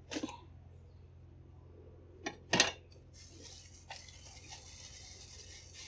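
A few knocks of a steel cleaver on a wooden cutting board, a light one at the start and a loud clack about two and a half seconds in as the cleaver is set down. After it, a faint steady hiss with a few small clicks.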